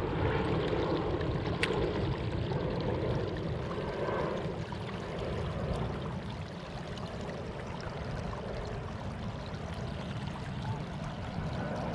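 Water rushing and splashing along a kayak's hull as it moves, over a steady low rumble.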